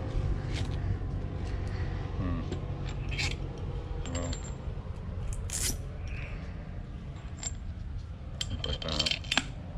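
Small metal parts clinking and tapping at irregular moments as a new Bilstein shock absorber's mounting hardware (washers and nut) is handled, over a steady low background rumble.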